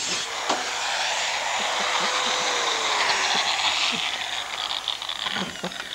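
Angle grinder cutting through a metal pipe: a steady hissing grind over the motor's whine, whose pitch sags about halfway through. The sound fades away over the last couple of seconds.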